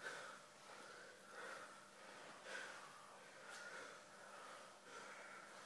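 Faint, irregular heavy breaths and nose exhalations from grapplers straining in a hold on the mat.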